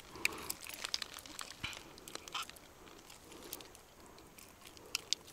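Faint scattered clicks and rustles of a metal hook-remover working a lure's hook out of the mouth of a hand-held asp.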